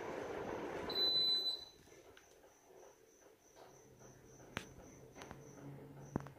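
Sharp AH-AP9HHY split air conditioner's indoor fan blowing steadily, then a single short high electronic beep about a second in, after which the airflow dies away as the unit shuts down. A cricket chirps faintly in the background, and a few faint clicks follow.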